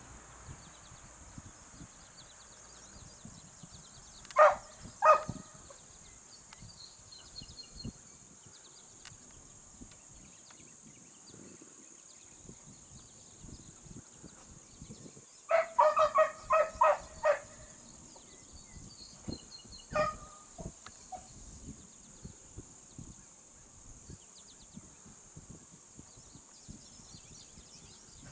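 Beagles barking on a rabbit's scent: two sharp barks about four seconds in, a quick run of about six barks around sixteen seconds, and a single bark near twenty seconds. A steady, high-pitched insect drone runs underneath.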